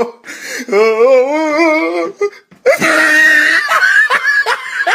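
Anime character's voice: a wavering, sobbing wail, then a loud strained scream starting a little before three seconds in.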